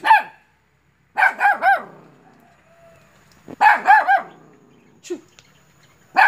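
A white puppy barking in short, high-pitched yaps: a single bark, then a quick run of three about a second in, another quick run around the middle, and one more near the end.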